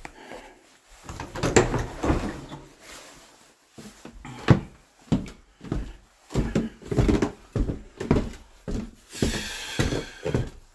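Steady footsteps, about two thuds a second, climbing stairs. Before them come a few knocks and rustles, like a door being handled, and near the end a brief scrape.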